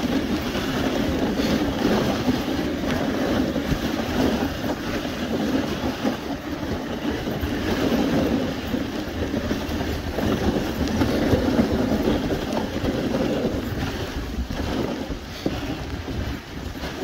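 Dog sled gliding over snow behind a husky team: a steady rushing noise from the runners, mixed with wind on the microphone.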